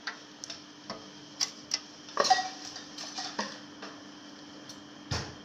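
Clicks and light clatter of hard parts being handled while swapping a desktop PC's power supply, with a cluster of louder knocks a little after two seconds in and a duller knock near the end.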